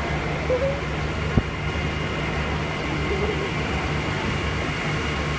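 Parked fire engines' diesel engines running steadily with a low, even drone, with one sharp knock about a second and a half in.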